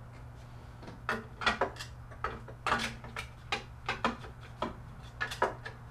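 Plastic crank-housing pieces being handled and fitted around a metal patio-umbrella pole and crank assembly: a series of light, irregular clicks and knocks.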